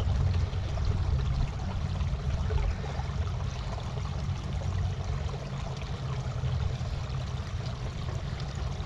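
Small creek running and trickling steadily, with a steady low rumble underneath.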